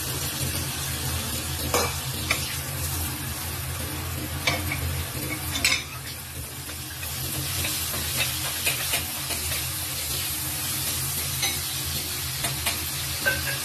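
Garlic cloves frying in hot oil in a pan, sizzling steadily, as a wooden spatula stirs them, with short knocks of the spatula against the pan now and then. A low steady hum runs underneath.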